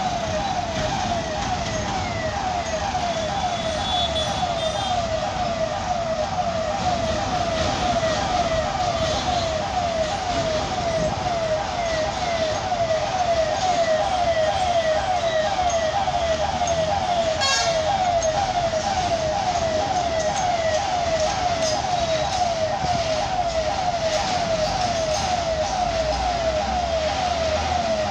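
Level-crossing warning hooter sounding without a break, a rapid string of short rising electronic chirps that warns a train is due. Underneath it, the engines of heavy trucks rumble as they drive across the tracks.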